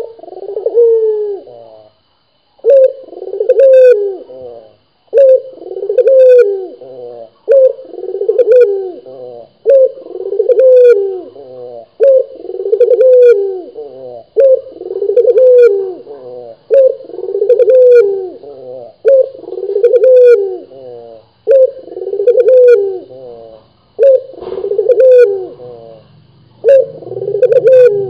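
Barbary dove (ringneck dove) cooing over and over, a rolling two-part coo repeated about every two seconds, a dozen times in a row.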